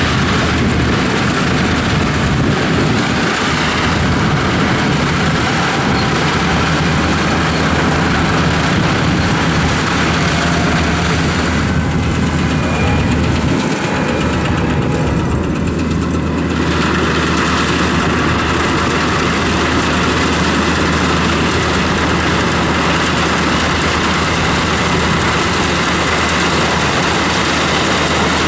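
Kubota AR96 combine harvester's diesel engine running steadily, a loud, constant machine noise with a low engine hum underneath.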